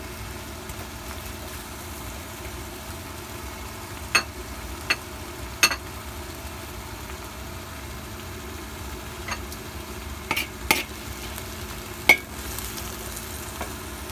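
Food frying in a pan with a steady sizzle, while a utensil clinks sharply against the pan about seven times as it is stirred.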